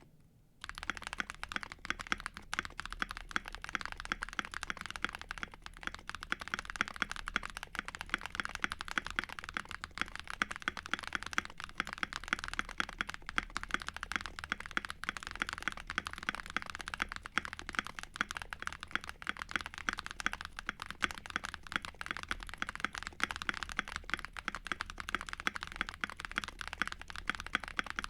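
Continuous fast typing on a custom mechanical keyboard with JWICK semi-silent switches, quiet on the upstroke and lubed with Krytox 205g0, on a polycarbonate plate in a foam-filled case with AKKO ASA keycaps: a dense stream of muted keystroke clicks. The typing starts about half a second in.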